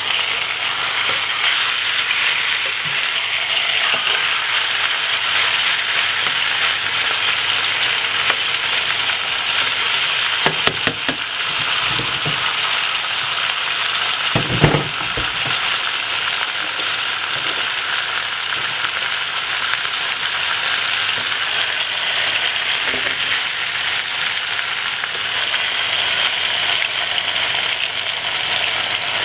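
Steaks sizzling steadily as they pan-fry in hot oil in a non-stick pot. A few short knocks around the middle, the loudest a little past halfway.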